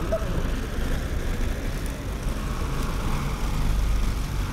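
Street traffic beside the sidewalk: a steady low rumble of cars on the road, with an engine hum standing out more in the second half.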